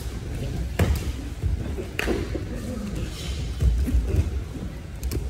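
Thuds and scuffling of grappling on foam mats, as bodies and bare feet hit the mats, with sharp impacts about one and two seconds in and more thuds near the four-second mark.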